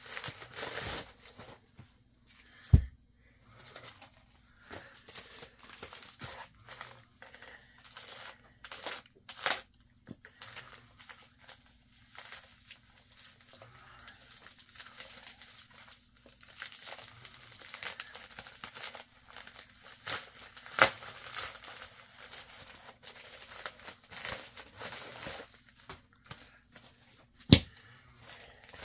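Plastic poly shipping mailer crinkling and tearing as it is worked open by hand, in an irregular run of rustles and crackles. Three sharp knocks stand out: about three seconds in, about two-thirds of the way through, and near the end.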